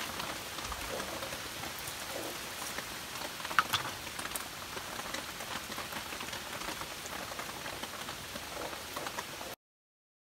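Steady rain pattering, with one sharper click about three and a half seconds in; the sound cuts off abruptly near the end.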